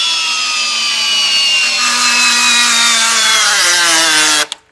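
Hercules 20V brushless hammer drill driving a large lag bolt through a torque meter via a socket. The motor's whine falls steadily in pitch as the bolt tightens and the load builds, then cuts off suddenly near the end.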